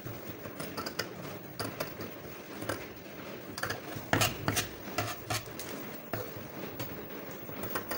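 Light irregular taps and scrapes of tailoring tools on a paper or fabric pattern, with a few sharper clicks about four seconds in.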